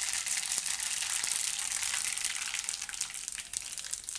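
Hot oil sizzling and crackling around mustard seeds and cumin frying in a kadai for a tempering (vaghar), easing slightly near the end.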